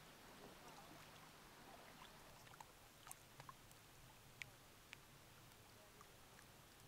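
Near silence: faint background hiss with a few soft, scattered ticks.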